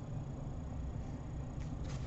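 Quiet room tone with a steady low hum. Near the end come a couple of faint soft ticks as a trading card is handled and set down on the counter.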